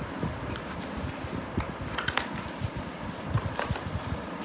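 Cardboard box and packaging being handled: scattered soft taps, clicks and light rustles, a few sharper clicks about two seconds in and again near the end.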